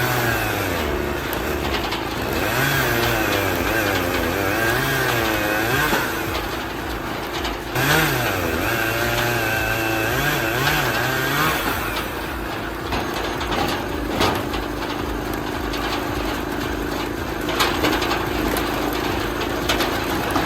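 Engine of a log-splitting machine running under changing load, its pitch dipping and recovering over and over for the first dozen seconds, then running steadier.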